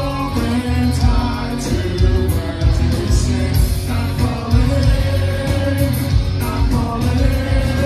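Rock band playing live: electric guitars, bass guitar and drums, with a lead vocal over them.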